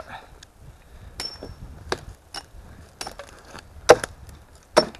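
A hatchet or small axe chopping into a log: about six separate sharp strikes, roughly a second apart, some with a brief metallic ring.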